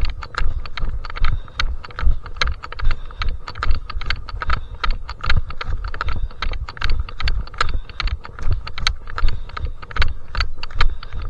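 Footsteps walking on a stony mountain trail, about two to three steps a second, each with sharp crunching clicks of grit and stones and a low thump.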